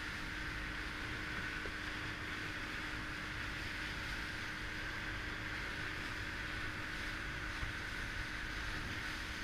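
Steady wash of wind and water around a small motorboat, with a faint steady hum underneath.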